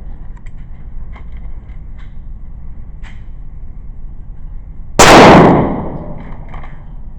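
A single gunshot from a small, inexpensive firearm about five seconds in, followed by an echoing tail that dies away over about a second. A few faint clicks come before it over a steady low rumble.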